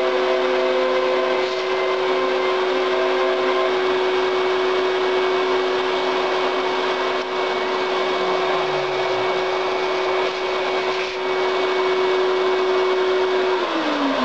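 Kress router motor on a hobby CNC machine running at a steady speed, a high whine over a dense hiss, with shorter tones coming and going over it. Near the end its pitch falls quickly as it starts to spin down.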